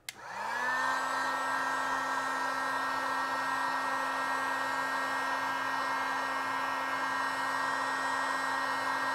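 A cheap Harbor Freight heat gun switched on with a click, its fan motor spinning up within about a second to a steady whirring blow of hot air.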